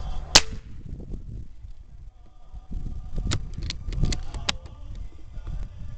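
Handling noise from an air rifle held on aim: one sharp click just after the start, uneven low rumbling, and a quick run of four or five light metallic clicks about three to four and a half seconds in.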